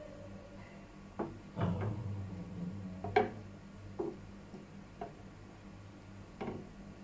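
Spatula or utensil knocking against a nonstick frying pan in about six separate taps, the loudest a little after three seconds in, as a thin fried egg sheet is lifted and turned in the pan. A low steady hum runs underneath.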